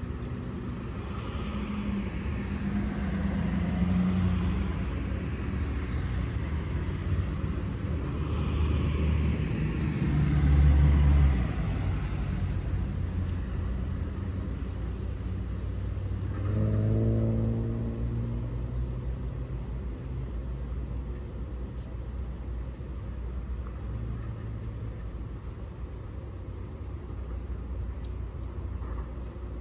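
Low vehicle rumble, like a car running, swelling a few seconds in and again around ten seconds, with a short engine note about halfway through.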